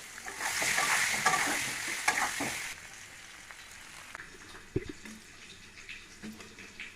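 Food sizzling in hot oil in a pan, loud for the first few seconds and then dropping to a quieter sizzle. Now and then a utensil clicks or knocks against the pan.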